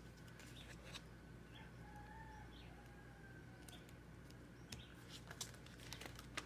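Near silence: quiet room tone with a faint wavering tone about two seconds in, then faint light taps and rustles of a sticker sheet and planner pages being handled in the second half.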